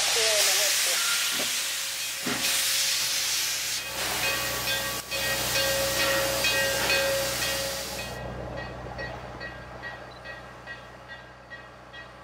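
A 1921-built 0-6-0 steam switcher locomotive hissing loudly as it vents steam, with one sharp knock partway through. About eight seconds in, the hiss cuts off suddenly and gives way to a much quieter train sound with a light, regular clicking.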